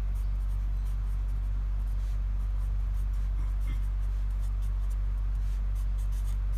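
Marker pen writing on a paper pad: short scratchy strokes as letters are written. Underneath runs a steady low hum.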